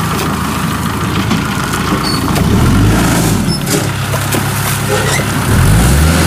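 Kubota DC-105X combine harvester's diesel engine running, revving up about two and a half seconds in and again near the end.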